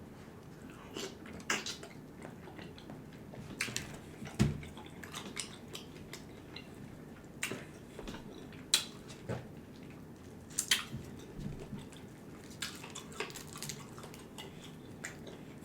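Eating a seafood boil close to the microphone: chewing and mouth sounds with scattered short clicks and light clatter at irregular moments throughout.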